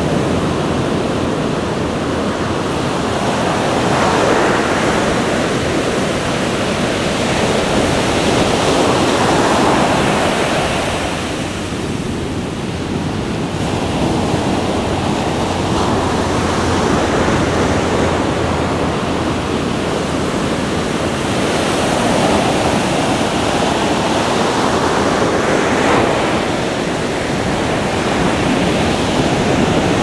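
Ocean surf breaking and washing up a sandy beach: a continuous rushing wash that swells and eases as each wave runs in every few seconds.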